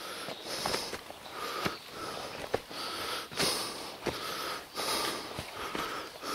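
A hiker breathing hard and rhythmically from the exertion of a steep uphill climb, with footsteps on rocky ground between the breaths.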